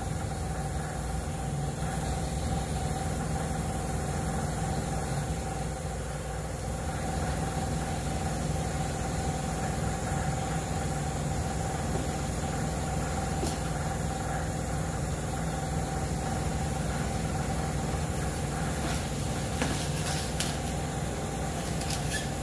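Steady machine hum that holds several fixed tones, unchanging, like a motor or engine running at idle. A few short clicks and knocks sound over it in the second half.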